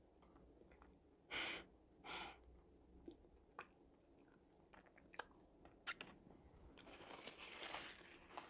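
Faint, close-miked eating sounds from a person chewing crispy breaded fried chicken. The chewing comes with two soft breathy rustles, one about a second and a half in and one about two seconds in, and a few sharp little clicks and crunches.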